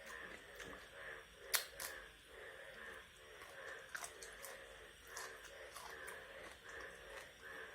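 Close-up eating sounds of fish being chewed: a wet mouth sound about every half second, with sharp crunching clicks. The loudest click comes about a second and a half in.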